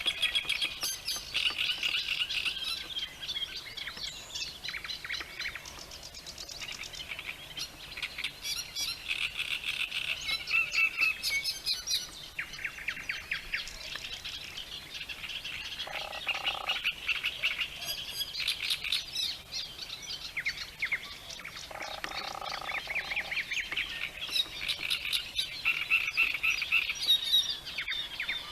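Chorus of frogs and birds: rapid high trills and chirps overlapping throughout, with two lower, longer calls a little past halfway and again about six seconds later.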